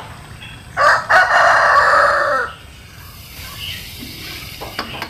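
A rooster crowing once, loud: a short opening note, then a long drawn-out note that falls away at the end.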